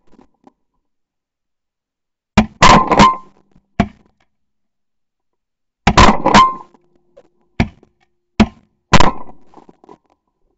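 A volley of shotgun blasts from several hunters: about ten shots. Three come in quick succession about two and a half seconds in, with one more a moment later. Another quick three follow near six seconds, then single shots roughly a second apart.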